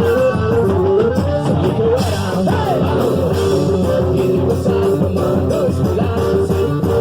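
Loud music: a sung melody over plucked guitar and other instruments with a steady beat.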